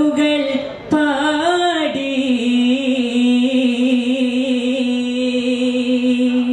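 Vattappattu singing by a group of men through a stage sound system: a slow, ornamented sung line that bends in pitch for a couple of seconds, then settles into one long held note.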